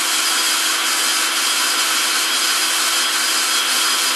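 Drill running steadily in low range, driving the EZ-Set winder to wind tension into a garage door torsion spring.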